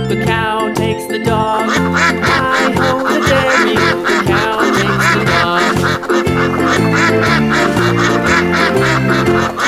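Bouncy children's song backing music with cartoon duck quacks repeated quickly in time with the beat, after a sung line ends about a second in.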